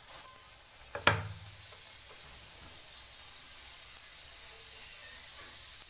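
A paratha shallow-frying in oil on an iron tawa, with a soft steady sizzle. One sharp knock about a second in.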